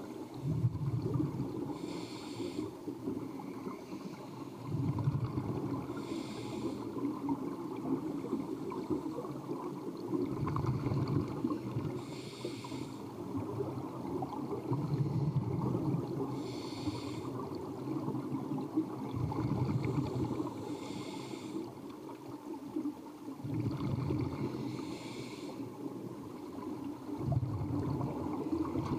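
Scuba diver breathing through a regulator, heard underwater. A short airy hiss on each inhale alternates with a low bubbling rumble on each exhale, one breath about every four to five seconds.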